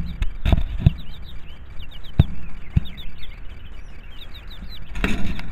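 A two-week-old chick peeping in a run of short high chirps, several a second. A few dull thumps sound over it, with the loudest at the start and just before the end.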